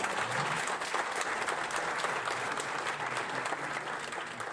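Audience applauding, a dense patter of many hands clapping that eases off toward the end.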